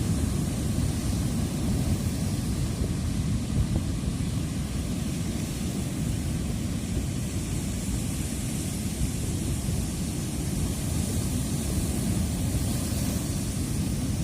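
Steady wind noise on the microphone over the wash of ocean surf breaking on the beach.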